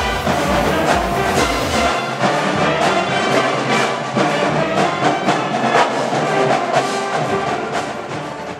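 School pep band playing a tune: saxophones, clarinets and brass over a steady drum beat. The deepest bass drops out about two seconds in, and the music fades near the end.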